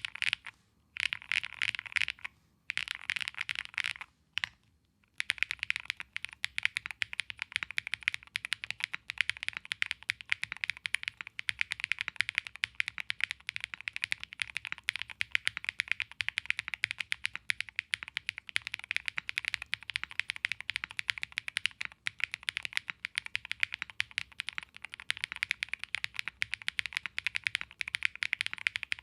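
Fast typing on an AM Compact Touch 65% mechanical keyboard, rapid key clicks. The first few seconds come in short bursts with brief pauses between them; from about five seconds in the typing runs on without a break.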